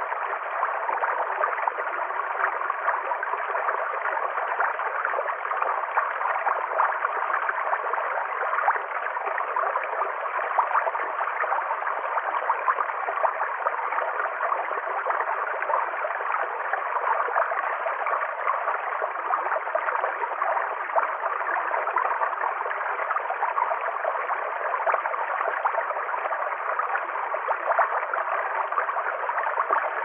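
Small rocky stream running over stones, a steady, unbroken rush of water.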